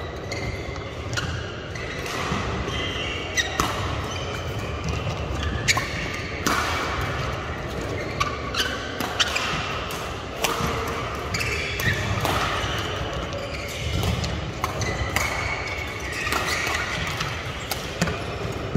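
Badminton rally: rackets striking the shuttlecock in a string of sharp cracks at irregular intervals, with shoes squeaking and thudding on the court floor. The sound echoes in a large sports hall.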